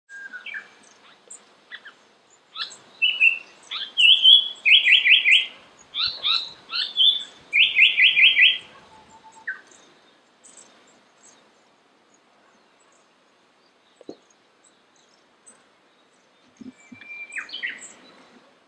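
Japanese paradise flycatcher singing: two phrases, each a few whistled notes followed by a quick run of four 'hoi-hoi-hoi' notes. After several quiet seconds, a few shorter notes come near the end.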